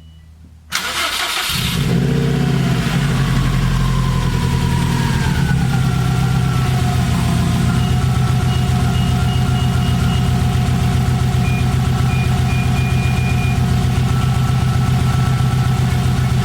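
2004 Subaru WRX's turbocharged flat-four engine cranking and firing up about a second in, just after a fresh oil change. It comes up to a fast idle that drops in pitch over the next few seconds and then settles into a steady idle.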